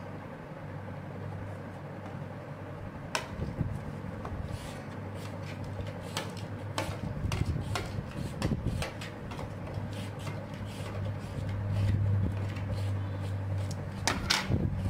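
Metal spoon clinking and scraping against glass as a spice paste is spooned from a glass bowl onto raw tuna in a glass baking dish: scattered irregular clicks and scrapes, with a cluster of them near the end, over a steady low hum.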